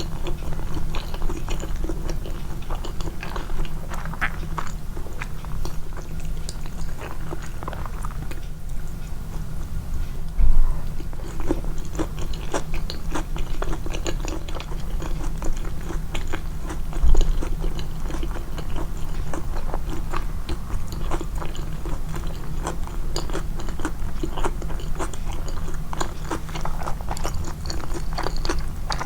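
A person chewing and biting food close to the microphone, with many small wet clicks and crunches, over a steady low hum. Two louder low thumps about ten and seventeen seconds in.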